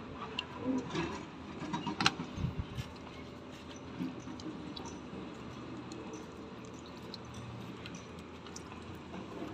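A few sharp clicks from a small metal solenoid valve part of a Komatsu PC210 excavator being handled, the loudest about two seconds in, then a soft steady trickle as fluid is poured over the valve to wash out and free its jammed parts.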